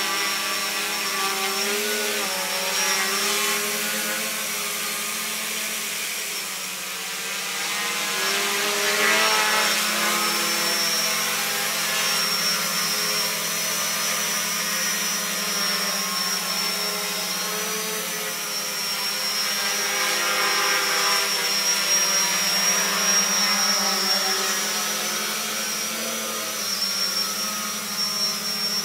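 Homebuilt quadcopter's four electric motors and propellers running in flight: a steady hum with a high whine on top, wavering slightly in pitch and swelling louder a few times as it manoeuvres.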